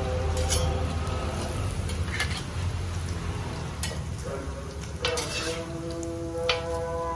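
Martabak telur frying in oil on a wide flat iron griddle, a steady sizzle, with metal spatulas scraping and tapping the pan now and then as the dough is folded over. Background music with held notes comes in about five seconds in.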